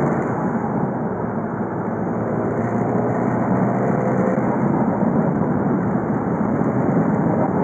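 VW Golf V's 2.0 TDI four-cylinder turbodiesel (BKD) running steadily on the move, its engine note mixed with road noise.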